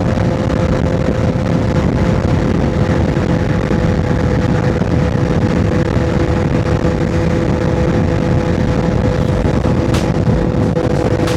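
CF Moto 675SS's three-cylinder engine, fitted with an aftermarket exhaust, pulling steadily at a constant cruising speed with no revving, under heavy rumbling wind noise. One short click comes near the end.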